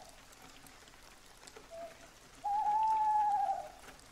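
Steady rain with scattered drop taps. Over it comes a long, steady, high-pitched tone, over a second long and dropping slightly at its end, with a brief shorter tone just before it.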